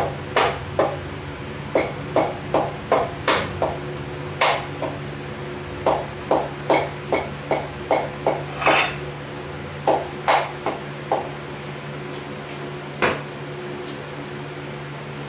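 Light hammer taps driving a piston and its rings down into a cylinder bore of a freshly bored Ford 302 V8 block, in irregular runs of two or three taps a second. The taps stop about eleven seconds in, with one more a couple of seconds later.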